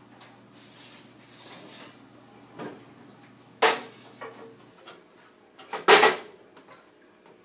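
Clunks and clatter of a metal baking pan of caramel popcorn being handled out of the oven and set on a gas stovetop, with a few sharp knocks and the loudest clatter about six seconds in. Softer rustling and a faint low hum that stops partway through sit between the knocks.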